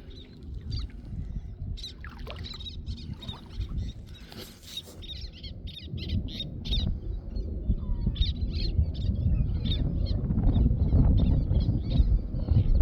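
Birds calling in many short, high, sharp calls, several a second in places, over a low rumble that grows louder about halfway through.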